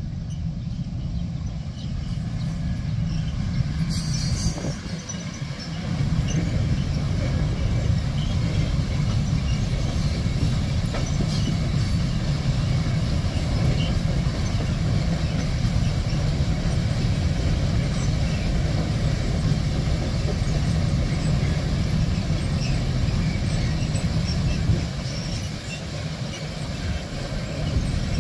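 Freight train of sliding-wall wagons behind an electric locomotive rolling past: a steady rumble of wheels on rails that grows louder about six seconds in and holds as the wagons go by.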